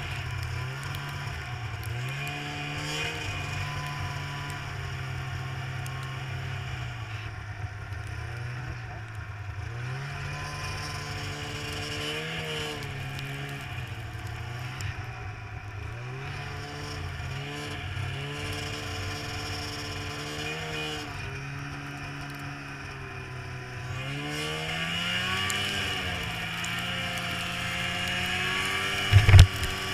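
Snowmobile engine running under a varying throttle, its pitch rising and falling several times as it speeds up and slows. A short, loud thump comes near the end.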